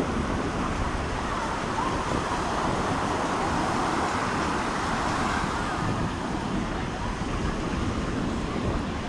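Steady wash of ocean surf mixed with wind rumble on the microphone, with faint voices of people in the background.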